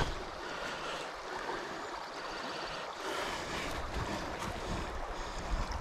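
Steady rush of a flowing river's current over shallow, rippled water, an even wash of noise.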